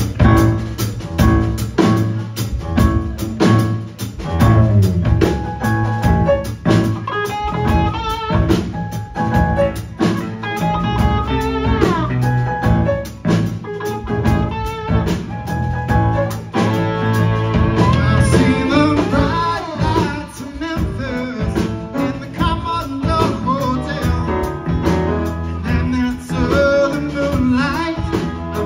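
Live rock band playing a funky blues-rock groove: electric guitars, bass guitar, drum kit and keyboards over a steady beat.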